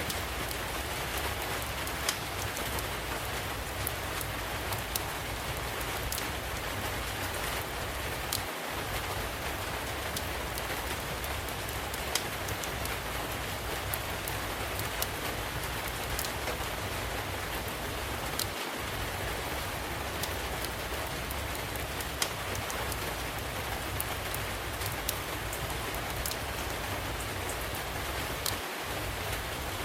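Steady rainfall with the sharp, irregular crackles and pops of a wood fire burning in a fireplace.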